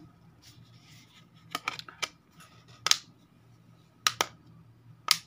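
Snap-on plastic back cover of an Alcatel 1 smartphone being pressed onto the phone body, its clips catching in a series of sharp clicks, the strongest about three seconds in and just before the end.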